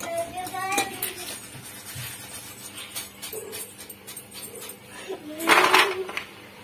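Crisp fried chegodis clinking and rattling in a wire-mesh skimmer and tumbling onto a foil tray, with a louder burst of rattling about five and a half seconds in. The rattle is the 'galagala' sound of rings fried hard and crunchy.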